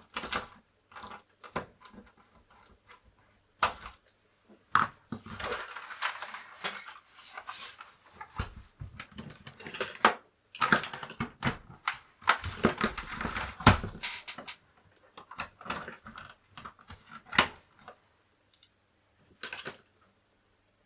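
Handling noises from working on a plastic Commodore 64 case: irregular clicks and knocks, with two longer stretches of scraping and rustling in the middle, dying away near the end.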